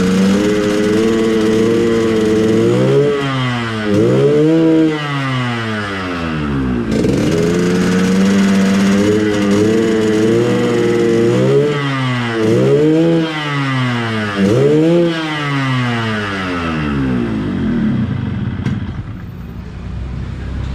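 Yamaha RX-King's single-cylinder two-stroke engine running, its revs rising and falling again and again, with steadier stretches in between, then easing off near the end. It is being tested before tuning, with a complaint that it feels heavy.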